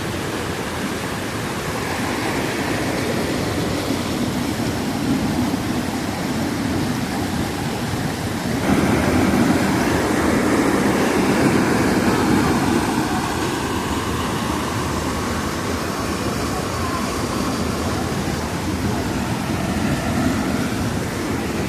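Waterfall in heavy flow: a steady rush of falling water, growing louder about nine seconds in.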